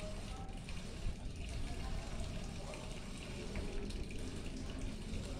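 Water running and splashing steadily into a koi pond.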